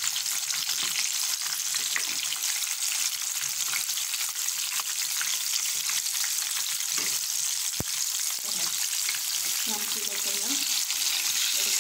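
Coated chicken pieces deep-frying in sunflower oil in a pan, a steady sizzle, while a spatula and a fork stir and turn them. There is one sharp click about eight seconds in.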